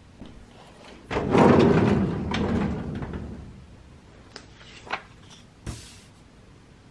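A wide, shallow drawer sliding open about a second in, with a rumbling slide that fades over about two seconds. A few light clicks and taps follow as a paper label is laid into the drawer by hand.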